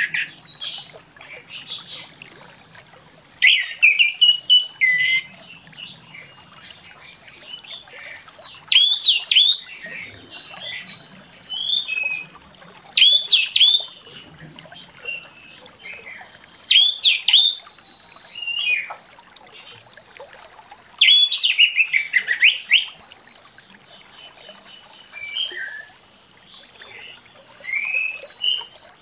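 Orange-headed thrush singing in full song: a run of loud, varied, high-pitched whistled phrases with quick rising and falling notes, each about a second long and coming every few seconds with short pauses between.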